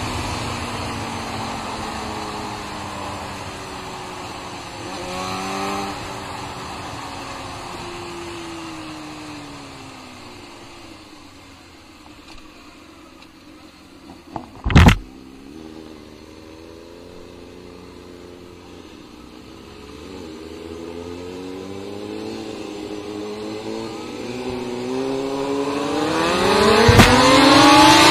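Sport motorcycle engine winding down as the bike slows, with a short rise in revs about five seconds in, then running low and quiet for a while. A single sharp thump comes about halfway through. After that the engine revs up hard through the gears, its pitch climbing, and is loudest near the end.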